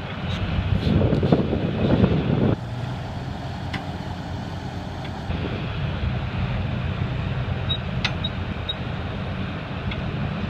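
Vehicle engine running steadily, with a louder, rougher surge lasting about two seconds near the start that cuts off suddenly.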